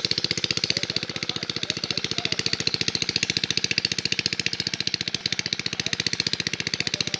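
A small engine running steadily at idle, with an even chugging beat of about ten pulses a second.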